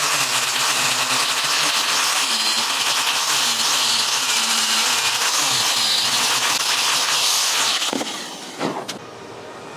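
Handheld electric power tool running loudly against wood, its motor pitch wavering under load, then switched off about eight seconds in and winding down, followed by a brief knock.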